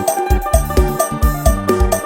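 Acoustic phin, the Isan Thai lute, plucked in a fast lam sing melody over a backing track with a steady drum beat of about four beats a second.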